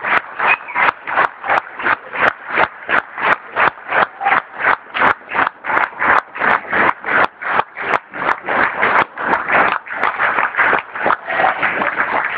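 Audience clapping in unison, a steady beat of about three claps a second, as a standing ovation.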